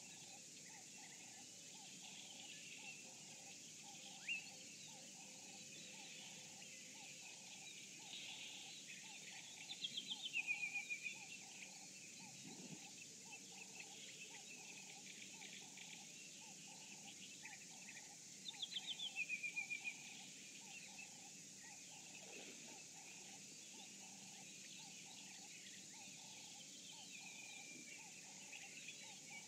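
Wild birds calling over a steady high insect hum. Twice, about ten and nineteen seconds in, one bird gives a loud rapid run of notes falling in pitch that ends on a short held note.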